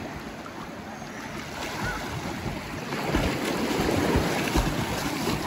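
Splashing of a person swimming through shallow seawater, kicks churning the surface, over the wash of small ocean waves. The splashing grows louder about three seconds in.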